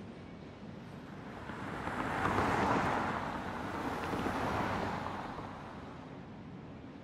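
A car driving past: a rushing swell of road noise that builds about two seconds in and fades away by about six seconds.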